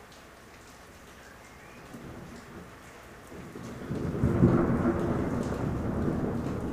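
Steady rain, then a long roll of thunder that swells about three and a half seconds in, peaks loudly a moment later and keeps rumbling.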